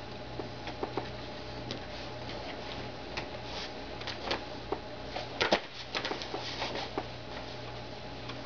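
An English saddle being handled, lifted and settled across a seated person's lap: scattered light clicks and knocks, with a cluster of sharper ones about five and a half seconds in, over a steady low hum.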